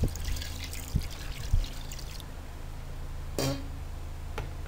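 Water pouring and splashing into an aluminium cooking pot of raw beef cubes, stopping about two seconds in. A few knocks follow, the sharpest near the end.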